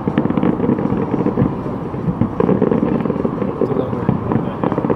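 Aerial fireworks display going off in a continuous barrage of overlapping bangs and crackles.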